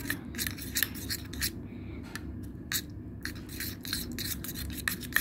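Metal spoon stirring a thick, sticky slime mixture of glue, paint and detergent water in a cup, giving quick irregular clicks and scrapes against the cup's side. The mixture is thickening into slime as the detergent water takes hold.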